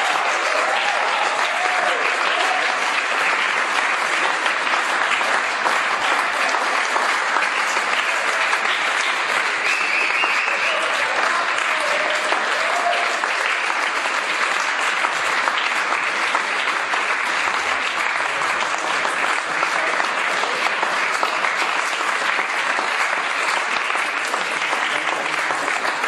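Large audience clapping steadily, with a few voices calling out over it near the start.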